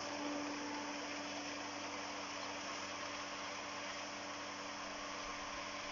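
Toom garden pump (domestic waterworks) running steadily with its valve open and water flowing: an electric motor hum under an even rushing hiss.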